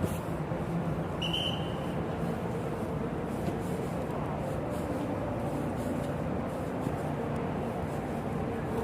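Busy city street ambience: a steady wash of traffic and crowd noise, with a short high tone about a second in.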